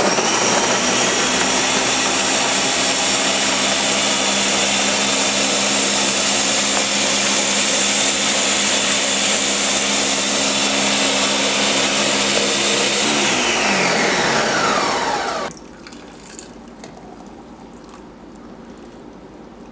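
Countertop blender blending a fruit and greens smoothie, running at a steady high speed for about thirteen seconds. Its pitch then falls over a couple of seconds as the motor winds down, and it stops about fifteen seconds in.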